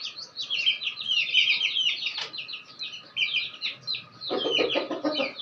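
Aseel chicks peeping continuously in quick, high chirps as they feed. About four seconds in, a lower clucking call from an adult chicken joins them.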